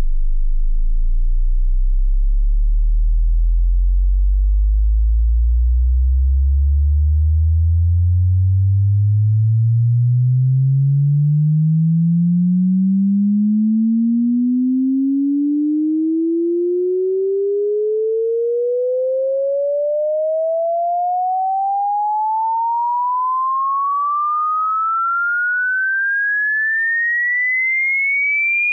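Test-tone frequency sweep: one electronic tone gliding steadily upward from a deep bass hum to a high whistle. It is buzzy with overtones in the low part and becomes a pure tone about halfway through.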